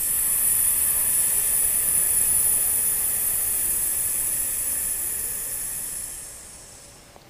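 A woman's long hissing "sssss" exhalation, the lung sound of the Taoist Six Healing Sounds. It holds steady for about six seconds, then fades out near the end.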